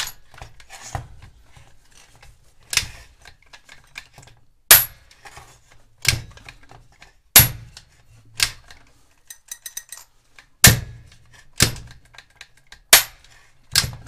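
The chain brake of a Zimani 372XP chainsaw is tripped and reset by hand again and again, its hand guard and brake mechanism snapping over in about ten sharp clacks a second or two apart, with a quick run of light ticks about two-thirds through. The brake works stiffly because of its very stiff springs, and the owner finds it still works strangely.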